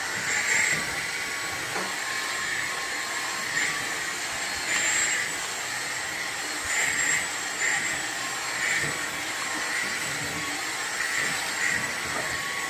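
Vacuum cleaner running steadily while being used to groom a cat's fur, its whine swelling briefly about once a second.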